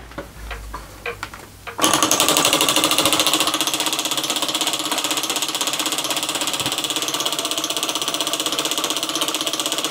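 Atomotor 107 toy electromagnet engine running on two D cells (3 volts). Its single coil attracts and releases a pivoting plate as the breaker switches the current, making a fast, even mechanical clatter that starts about two seconds in.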